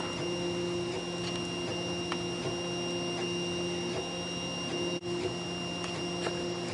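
Solidoodle 3 3D printer running as it lays down the first layer: its stepper motors whine steadily as the extruder moves, with faint scattered ticks. The sound drops out for an instant about five seconds in.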